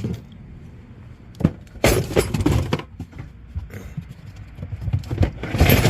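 Clattering and knocking of hard items as a storage box of fluid containers and oil filters is handled and put away. There is a sharp knock about one and a half seconds in, a run of clatter after it, and a louder burst near the end.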